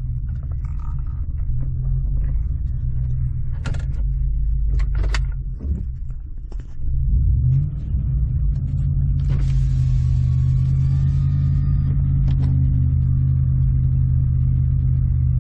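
Ford F-150 pickup engine running roughly at idle. About six seconds in it sags as if about to stall, then picks up with a rise in revs and holds a steadier, faster idle. The engine has a misfire and won't stay running without gas. A few sharp clicks sound a few seconds in.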